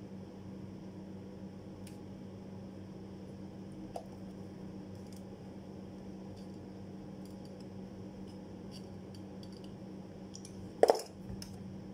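Steel rule die blade being worked with bending pliers: small metallic clicks and one loud, sharp clank with a short ring near the end, over a steady low hum.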